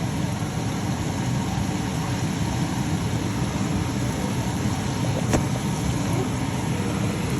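Rice frying in a pot over a burner: a steady rushing noise, with one sharp click about five seconds in.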